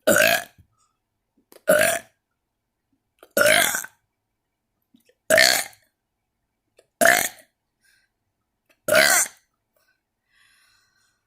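A person burping six times in a row, each burp short, about one every two seconds.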